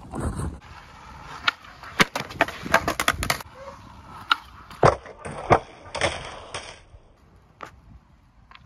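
Skateboard on concrete: wheels rolling, then a quick series of sharp clacks of the board and trucks striking the ledge and ground. Four more hard hits follow as the board clatters away from a bail, then the sound dies down.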